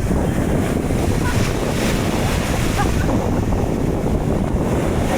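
Wind buffeting the microphone over waves breaking on a beach, a steady rushing rumble.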